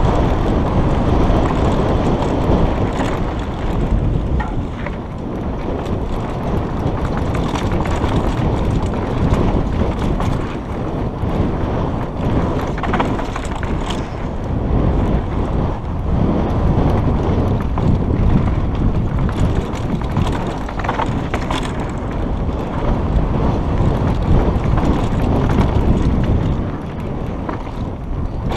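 Wind buffeting a helmet-mounted action camera's microphone as a mountain bike runs fast down a dry dirt trail, with a steady rumble of tyres on dirt. Several brief sharp clicks and knocks from the bike break through now and then.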